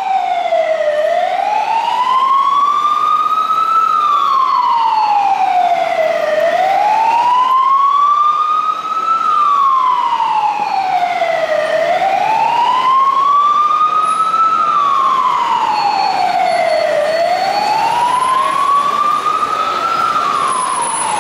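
Mercedes-Benz Atego fire engine's siren sounding a slow wail, rising and falling about every five seconds, four full cycles.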